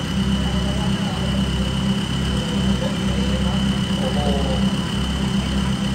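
Off-road 4x4 competition vehicle's engine running steadily at low revs, with a low, even drone and no revving.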